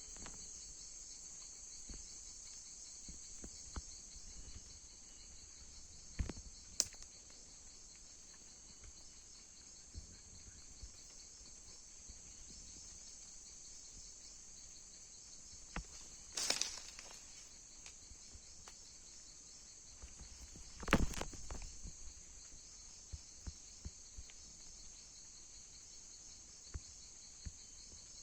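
Steady high-pitched insect chorus, with a few brief knocks or rustles about 6 s in, around 16 s and around 21 s.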